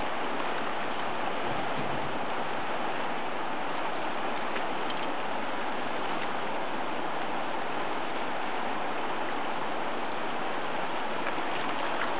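Steady rushing of fast-flowing river water around a boat.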